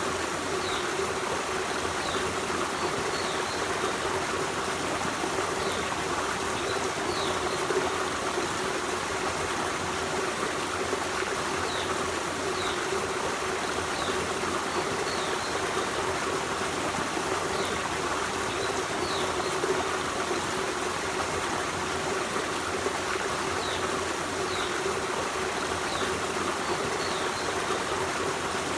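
Forest stream running steadily over rocks, a continuous rushing and trickling of water. Faint short high bird chirps recur every second or two over the water.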